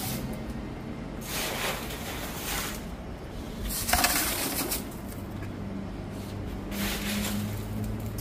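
Ice being pushed by hand into a plastic barrel of water, heard as three scraping bursts with a sharp knock about four seconds in, over a faint low hum.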